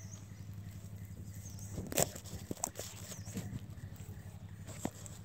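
Knocks and taps from a smooth-coated otter moving about on the metal bars of its cage, the loudest about two seconds in, over a steady low hum.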